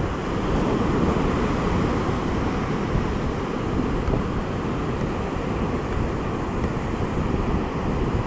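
Ocean surf breaking and washing up a sandy beach at a spring-tide high tide, a steady rush of noise, with wind buffeting the microphone.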